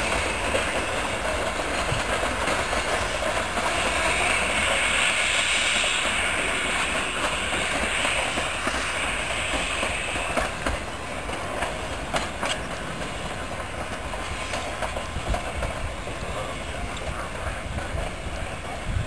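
Narrow-gauge steam passenger train rolling past, a steady rumble with its wheels clicking over the rail joints. The sound eases off a little after about ten seconds as the train draws away.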